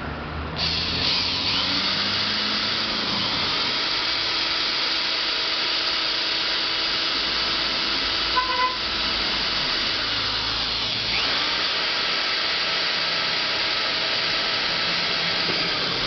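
Cordless drill running steadily, boring a hole through the plastic tilt joint of a pedestal fan; it starts about half a second in. A brief squeak about eight and a half seconds in.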